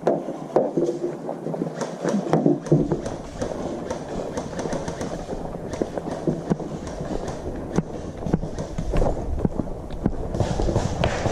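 A player moving about, with footsteps and scattered sharp clicks and knocks. From about three seconds in, wind rumbles on the microphone.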